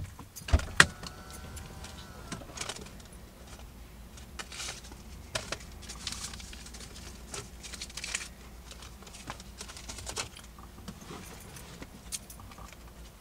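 Clicks, knocks and rustling of someone shifting in a car's driver seat and climbing out through the open door, over a low steady hum. Two sharp clicks come just under a second in.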